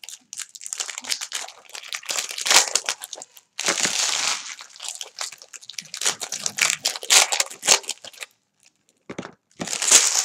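Foil trading-card pack wrappers crinkling and tearing as packs of baseball cards are ripped open and crumpled. It comes in a run of crackly bursts, with a short pause shortly before the end.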